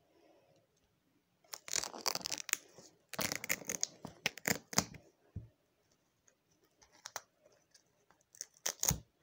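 A small portable speaker's cone being torn and cut away from its driver by hand and with a knife. There are two long stretches of ripping and scraping, then scattered clicks, and a short crackle with a low thud near the end.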